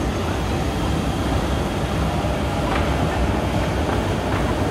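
Train running with a steady, loud rumble.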